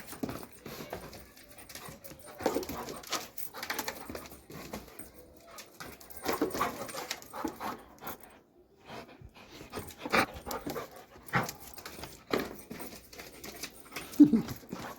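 Doberman pinscher panting and moving about in irregular short bursts, with one short, loud call near the end.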